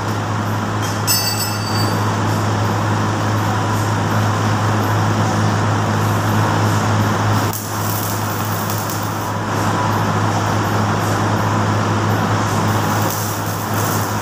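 Stick welding on the steel tubing of a hand trolley cart: the arc crackles and sizzles steadily over a constant low hum, briefly dropping out about seven and a half seconds in.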